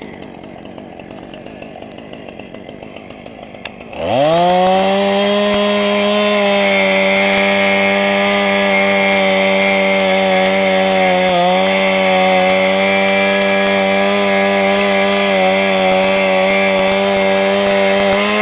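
Two-stroke chainsaw running low for about four seconds, then revved sharply up to high speed and held there steadily, with one brief dip partway through.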